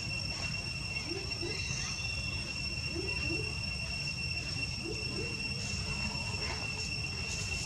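A steady, high-pitched insect drone over a constant low rumble, with a few faint short rising notes.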